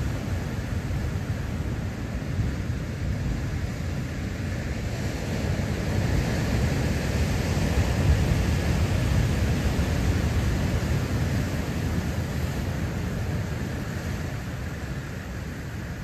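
Big ocean surf breaking on a lava-rock shoreline: a continuous deep rushing noise that swells around the middle as a large wave breaks, then eases off near the end.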